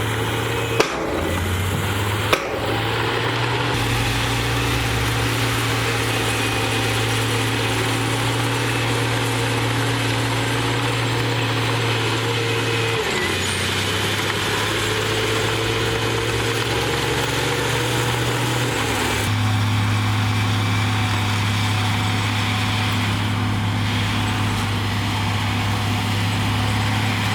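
A Komatsu D58E bulldozer's diesel engine runs steadily under work, its pitch shifting a few times as the engine speed changes. Two sharp metallic knocks come in the first few seconds.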